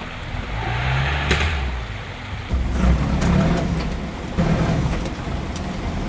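Toyota LandCruiser 40-series engine revving in surges under load as it crawls over creek rocks, heard from inside the cab, with one sharp crack about a second in.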